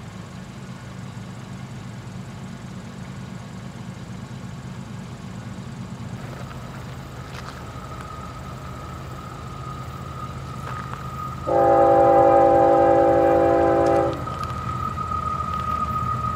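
Diesel freight locomotive's air horn sounding one long chord of several notes for about two and a half seconds, about three quarters of the way in, over the low rumble of the approaching train. A thin steady high tone is heard from about halfway on.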